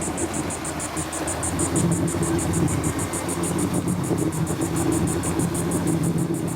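Motorboat engine running steadily under way while towing a skier, its hum growing a little stronger about two seconds in.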